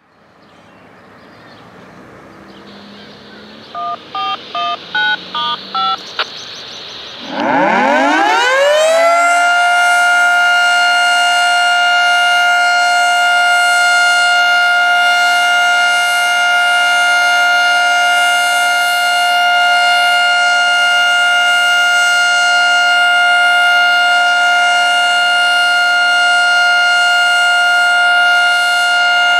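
About seven quick DTMF touch-tone beeps of the activation signal, then a Federal 3T22A three-phase, three-tone siren with a blocked 10-port air intake. It winds up from a low growl to a steady chord of several tones and holds it.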